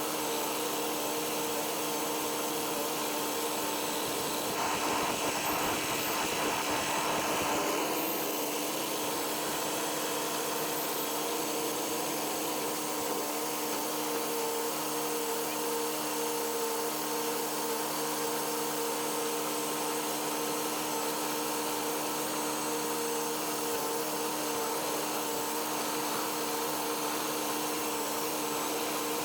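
Tractor and round baler running steadily at work, a constant mechanical hum and whine that swells slightly for a few seconds about five seconds in.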